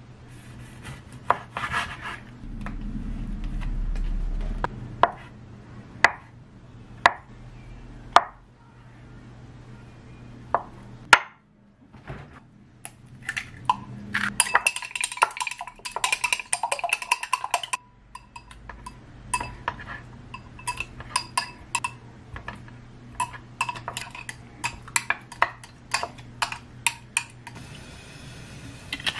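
Kitchen prep sounds: a knife knocking on a wooden cutting board as a sausage is sliced, a sharp crack about 11 s in as an egg is broken, then rapid ringing clinks of chopsticks beating the egg in a glass cup, followed by scattered taps.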